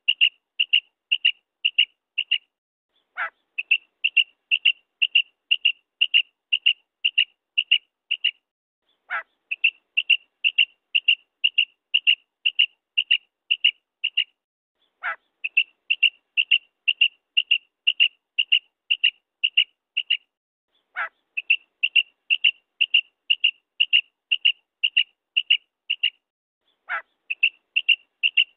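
Female common quail calling: quick runs of short, high, clipped notes, about three a second. Every six seconds or so a single lower note sweeps downward and breaks the run. The same sequence repeats evenly.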